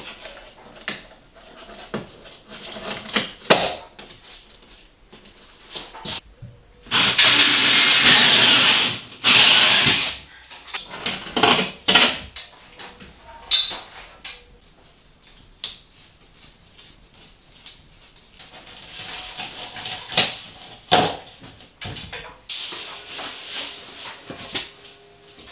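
Scattered knocks and clatter of building work, with a power tool running in two loud bursts about seven and nine seconds in.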